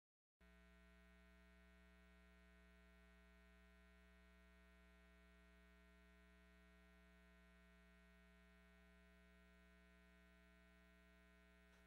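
Near silence: a faint, steady electrical mains hum that starts about half a second in.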